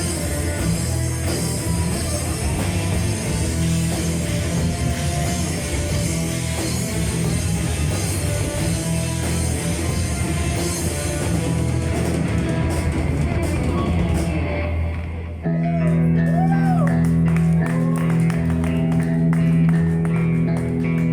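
Metal band playing live, full band with drums and guitars; about 15 seconds in the drums and cymbals drop out, leaving held low notes under a clean picked guitar.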